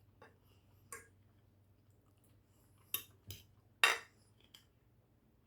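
Cutlery clinking against a plate at a meal: about six short separate clinks, the loudest nearly four seconds in.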